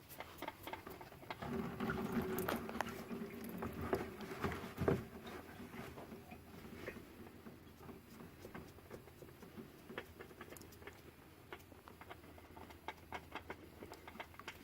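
Oil filter being unscrewed by hand from a 4-cylinder engine, with oil dripping and pattering into a plastic drain pan. Faint clicks and taps come throughout, with a single thump about five seconds in.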